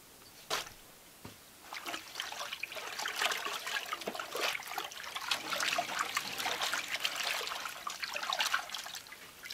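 A wet cloth being kneaded and swished by hand in a wooden tub of dye liquid: irregular sloshing and splashing that starts about two seconds in, after a single short knock.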